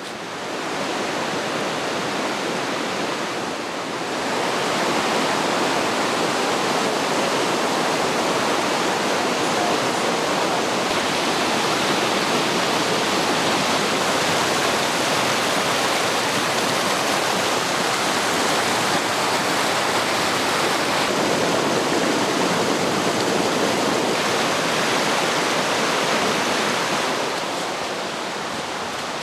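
Musquash Stream rushing over small waterfalls: a steady, loud roar of white water, the stream running high after recent rain. It grows louder over the first few seconds, then holds steady.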